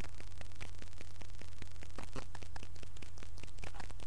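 Steady low hum and crackling static from a webcam microphone, with rustling and scratchy handling noise as a vampire costume is pulled on over the head.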